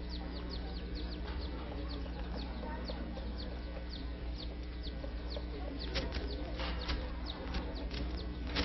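A bird chirping over and over, short high chirps that slide downward, about three or four a second. Underneath is a steady low hum, and a few louder clicks or knocks come near the end.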